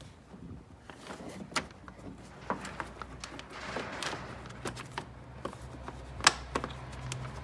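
Scattered sharp clicks and knocks of hands fitting plastic door-trim parts back into place, the loudest knock about six seconds in. A low steady hum comes in about halfway through.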